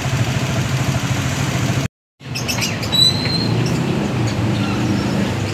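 Vehicle engine idling in stopped traffic. After a sudden cut, birds chirp and whistle a few times over a low engine hum.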